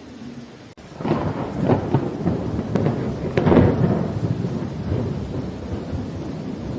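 Thunder over steady rain: a peal breaks in about a second in with several sharp cracks, is loudest around the middle, then eases into a low rolling rumble under the rain.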